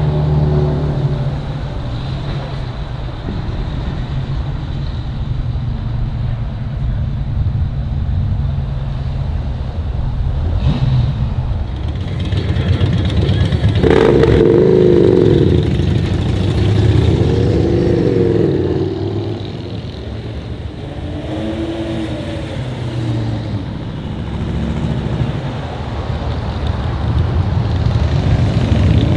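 Classic cars and motorcycles in slow street traffic, engines running in a steady low rumble. From about halfway through, engines rev up and pull away, the pitch rising and falling three times.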